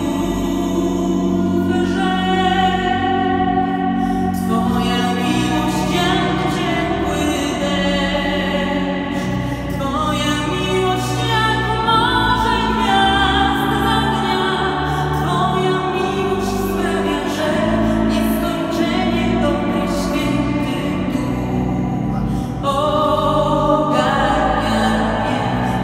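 A woman singing a Polish religious song solo, holding long notes over an instrumental accompaniment.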